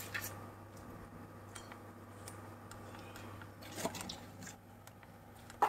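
Faint, scattered clicks of fingers pressing the keypad buttons on a Chicago Pneumatic ES4000 compressor controller, over a low steady hum.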